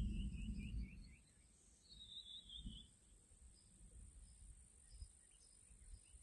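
A low rumble that dies away about a second in, then a bird's trill of quick high notes stepping downward in pitch, heard twice, over a steady high insect whine.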